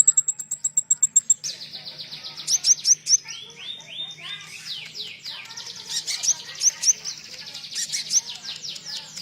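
Songbird song from a konin bird masteran with cililin song. About eight very high, thin ticks a second for the first second and a half, then fast trills and chattering phrases of quick falling notes.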